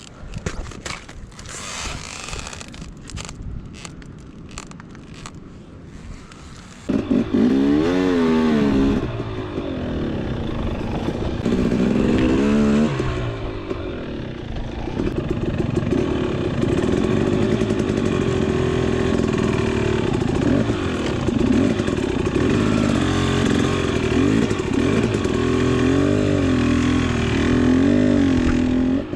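A KTM 250 XC-W two-stroke dirt bike being ridden. For the first several seconds it is quieter, with scraping and clattering. About seven seconds in, the engine gets much louder and revs up and down several times, then runs at a steadier high pitch with small rises and falls.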